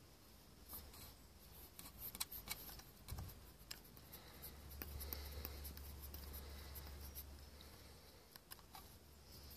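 Faint clicks and light scraping as fingers handle the metal cogwheel mount and thumbscrew knob of a Fotga DP500 II follow focus, with a low rumble from about halfway in until near the end.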